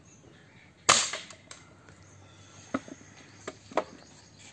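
A single shot from a break-barrel air rifle about a second in: one sharp crack that dies away quickly. A few lighter clicks follow near the end.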